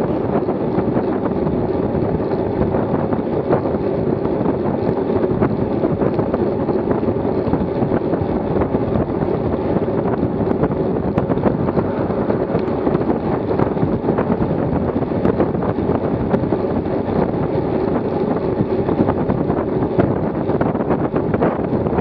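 Steady rushing wind buffeting the microphone of a bike-mounted camera on a road bike riding at about 27 mph, with faint scattered ticks.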